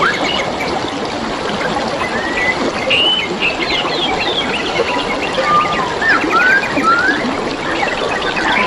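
Small stream trickling steadily, with several songbirds calling over it in short rising and falling whistles and chirps.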